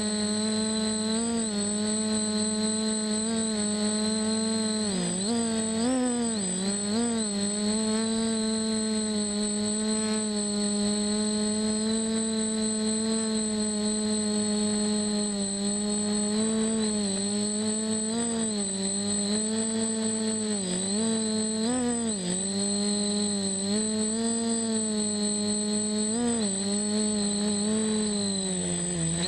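DJI F450 quadcopter's electric motors and propellers whining steadily in flight, heard from a camera mounted on the frame. The pitch dips briefly and comes back several times as the motor speeds change, over a constant thin high tone.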